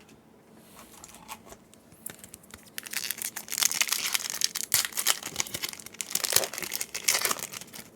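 Foil Yu-Gi-Oh booster pack wrapper crinkling and tearing as it is opened by hand, starting about three seconds in and stopping just before the end.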